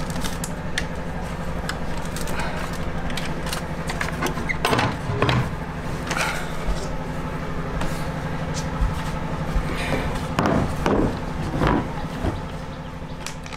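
Wooden knocks and clatter from a wooden cabinet being rummaged through and its contents handled, a scattering of knocks with the loudest about five seconds in and again between ten and twelve seconds, over a steady low hum.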